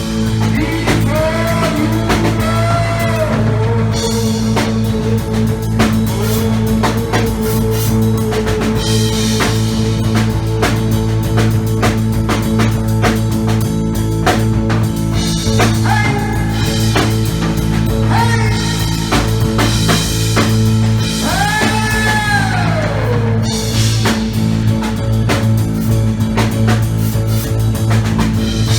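Live improvised rock band playing: heavy drumming over a steady low drone, with a pitched line that glides up and slides back down about 22 seconds in.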